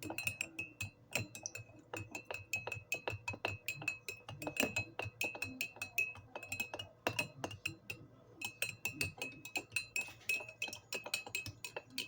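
Metal teaspoon stirring honey into hot water in a mug, clinking quickly and repeatedly against the mug's sides, each clink ringing briefly. The stirring pauses for a moment about two-thirds of the way through.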